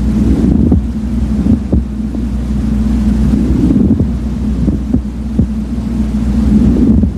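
Lung sounds heard through a stethoscope over the right middle lobe, with a pleural friction rub: the sign of inflamed pleural surfaces rubbing together as the lung moves. The breathing swells and fades about every three seconds, with short sharp clicks scattered through it, over a steady low hum.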